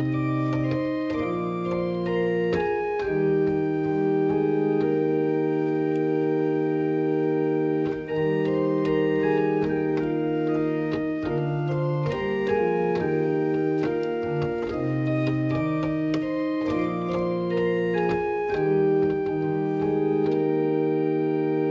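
Organ playing a slow Christian chorale in sustained chords, with a brief break between phrases about eight seconds in.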